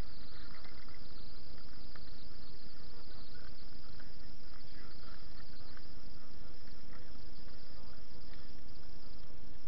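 Steady hiss with a low rumble and a faint steady hum, picked up by a body-worn camera's microphone. It is the noise of the camera and of wind and clothing on its microphone, with a few faint ticks.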